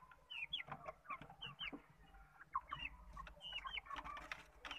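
Young chicken chicks peeping: a run of short, high chirps, a few each second, some sweeping up in pitch and some down, with a few faint knocks among them.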